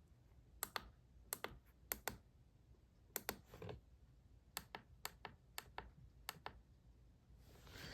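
Faint, irregular clicking of buttons being pressed on a weather radio's keypad, often in quick pairs, as it is set to alert for a single county.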